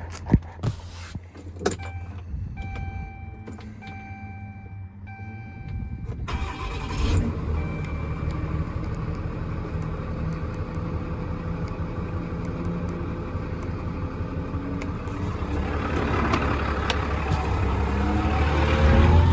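The 2012 Ram 5500's 6.7 Cummins inline-six diesel is started about six seconds in, catching with a short surge, then runs steadily and rises in speed near the end. Before the start there are a few sharp clicks and a dashboard warning chime beeping.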